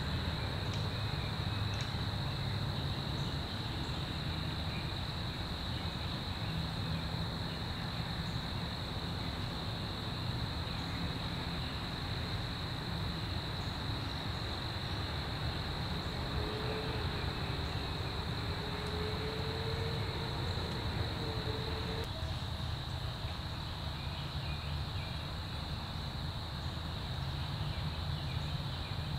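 Steady chorus of insects such as crickets, a continuous high-pitched buzz, over a low rumble. A faint wavering hum comes and goes in the middle.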